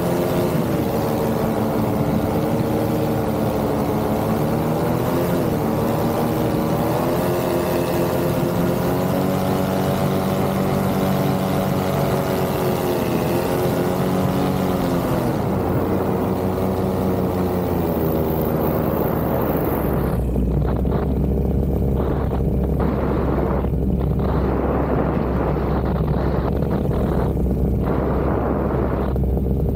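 Paramotor engine and propeller droning in flight, the pitch rising and falling with the throttle. About two-thirds of the way through the high part of the engine sound fades and a low wind rumble on the microphone takes over.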